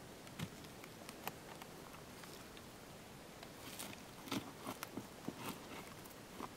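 Quiet rustling and small taps and crackles as a hunter shifts in dry grass and settles a scoped rifle onto a fallen log for a rest, with a cluster of them about four seconds in.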